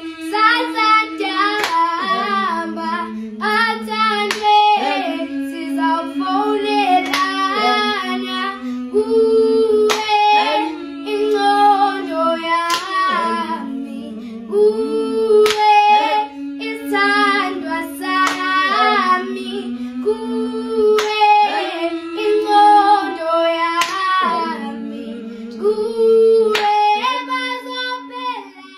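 Three young girls singing a Xhosa gwijo-style song a cappella in close harmony, keeping time with a steady hand clap a little under once a second.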